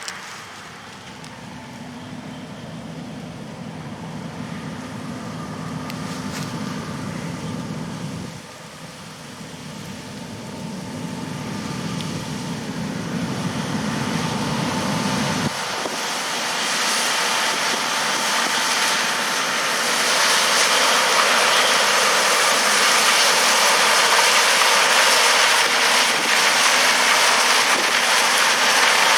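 Farm harvesting machinery running. A steady diesel engine drone gives way, after a sudden change about halfway through, to a loud, steadily building rushing noise that spans many pitches.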